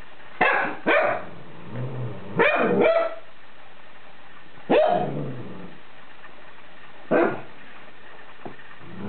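Cavalier King Charles Spaniel puppy barking about six times in short, sharp barks spread out with pauses between them. It is barking at a pair of ape-head slippers that frighten it.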